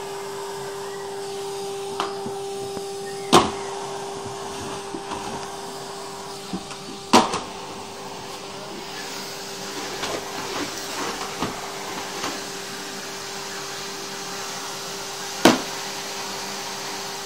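Vacuum cleaner running with a steady, even-pitched hum and a hiss. Three sharp knocks come through it, about three, seven and fifteen seconds in, with lighter ticks between them.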